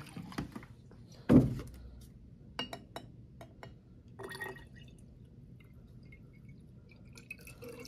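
A sharp knock about a second and a half in, a few light clicks, then water being poured from a jug into a glass bottle.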